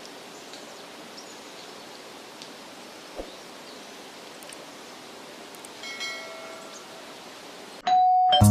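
Steady outdoor background hiss with a few faint short chirps and one brief pitched sound about six seconds in. Guitar music starts loudly at the very end.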